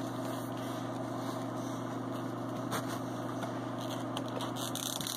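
Steady low mechanical hum with several steady pitched tones, falling away right at the end.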